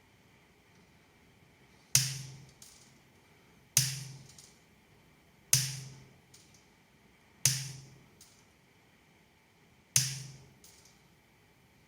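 Five sharp knocks or snaps, roughly two seconds apart, each ringing out briefly, over a faint steady high whine.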